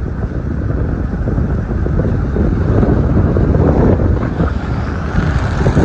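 Strong wind buffeting the microphone in a storm: a loud, rough, gusting rumble.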